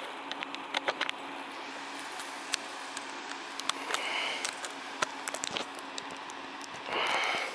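Handling noise from a camera being moved about while its charging cable is plugged in: scattered small clicks and knocks over a faint steady hum, with a short rustle about four seconds in and a louder scrape near the end.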